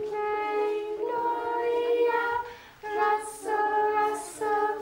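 Women and young children singing a simple song together unaccompanied, in long held notes, with a brief pause about two and a half seconds in.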